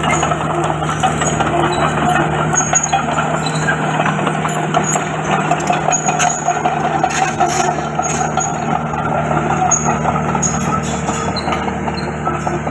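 Komatsu D31PX crawler bulldozer at work: its diesel engine running steadily under a dense, continuous rattle and clank of the steel tracks.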